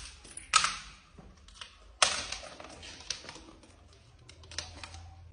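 Small clear plastic box clattering down granite steps: two sharp hits on the stone about half a second and two seconds in, then lighter clicks and rattles as it tumbles on.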